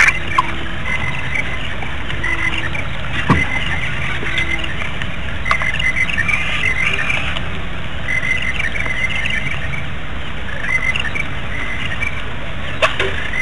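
Small birds chirping in short repeated series over a steady hiss of outdoor background noise, with a few sharp clicks, one about three seconds in and one near the end.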